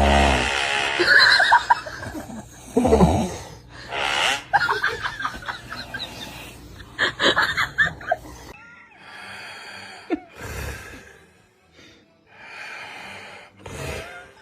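A sleeping person snoring in an irregular run of snorts, wheezes and whistling, pitched gasps. The sounds are loud and close together at first, then thin out into fainter breaths after about eight seconds.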